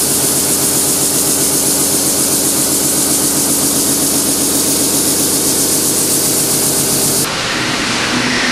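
Horizontal boring mill's integrated facing head turning on the spindle: a steady pulsing machine hum with a loud hiss over it. Near the end the sound changes suddenly to a quieter, duller machine sound.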